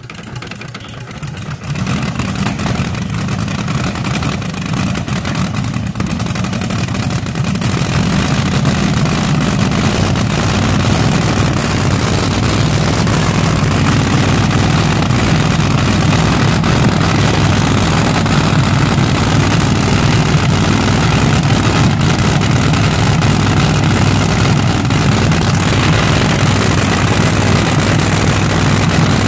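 The twin-engine dragster's engines running at a steady idle, with no revving. The sound jumps in loudness about two seconds in and grows a little louder again around eight seconds in.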